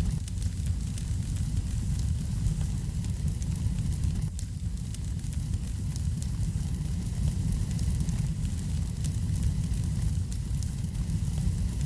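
Wood fire burning in a fireplace: a steady low rumble with many small crackles and pops scattered throughout.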